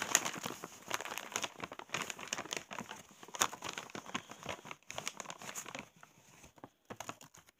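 Crinkling and rustling of packaging being handled, in irregular crackles that thin out and grow fainter about six seconds in.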